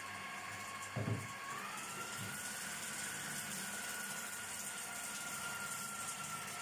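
Electric food processor motor running steadily, whipping cream with cold milk and sugar; its whine rises a little in pitch about two seconds in. A low thump about a second in.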